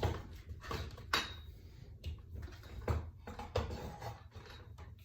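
Light metallic clicks and knocks of a bicycle wheel and its parts being handled on the bike, a handful of separate sharp taps at irregular times.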